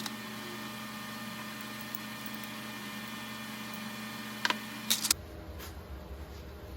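A steady faint hum with a few sharp clicks about four and a half to five seconds in, from parts being handled and fitted.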